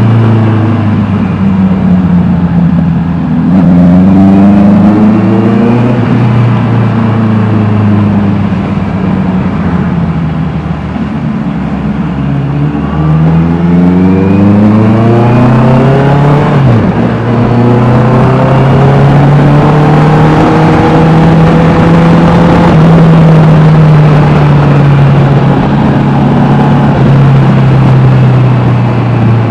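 Honda CBR650R's inline-four engine through an Austin Racing exhaust, being ridden: the revs climb and fall several times, with a quick gear change about halfway through, then hold a fairly steady engine speed.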